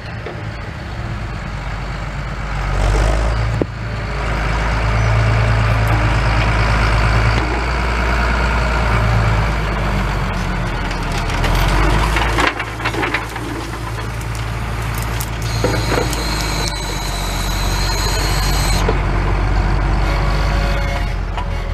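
Case IH 1455 XL tractor's six-cylinder diesel running steadily under heavy load while ploughing, with the rattle and knocks of the reversible plough and packer in the soil. A high steady squeal joins in for about three seconds in the second half.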